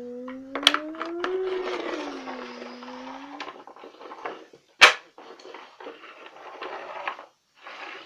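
A long wavering hummed note in a child's voice for about three seconds, then rustling and clicking of toys being handled, with one sharp knock about five seconds in.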